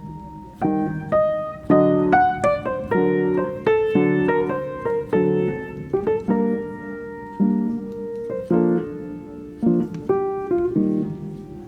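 Background music: a piano melody of quick, separate notes that ring and fade, over sustained lower chords.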